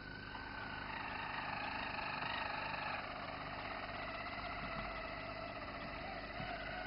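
Roller canary singing a continuous song of held, rolled notes that shift to new pitches every second or two.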